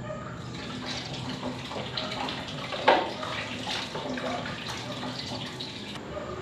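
Water running from a tap into a bathroom sink and splashing as someone washes at the basin, with one louder splash about three seconds in.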